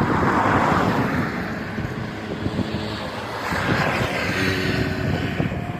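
Rough sea in a storm: surf rushing and breaking, heard as a loud roar that swells at the start and again about three and a half seconds in, with wind buffeting the microphone.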